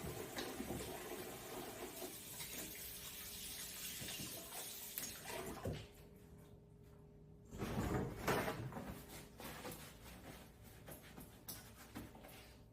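Water running from a tap, as if hands are being rinsed, that stops about six seconds in. About two seconds later comes a short, louder knock or thump, then a few light knocks.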